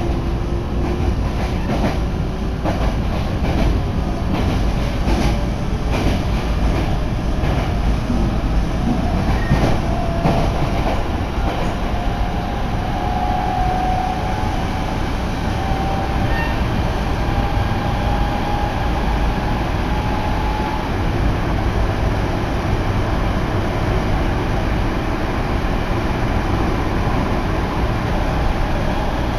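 Electric commuter train running, heard from inside the car: a steady low rumble with sharp rail-joint clicks through the first several seconds, and a motor whine that rises in pitch through about the first half as the train gathers speed, then holds level.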